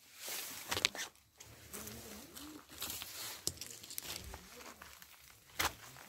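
Footsteps crunching through dry grass, leaves and loose stones, with brush rustling and a few sharp clicks.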